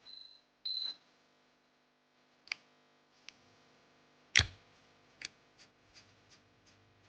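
Two short high beeps in the first second, then sharp clicks and taps of small hard objects: a loud knock about four seconds in, followed by a run of lighter clicks coming closer together.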